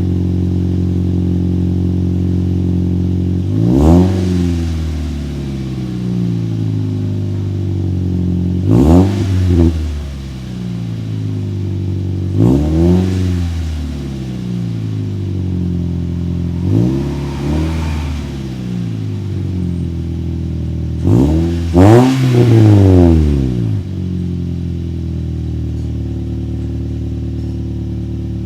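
Toyota Yaris 1.3-litre four-cylinder engine idling through an HKS freeflow muffler, blipped up in quick revs about five times, each falling straight back to idle. The exhaust note is not too noisy, with a little bass.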